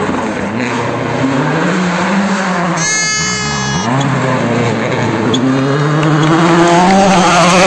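Ford Fiesta WRC rally car's turbocharged 1.6-litre four-cylinder engine working hard through a gravel hairpin. The revs fall and rise sharply as it brakes, shifts gear and accelerates, with a brief high whine about three seconds in. It gets louder near the end as the car powers out of the bend.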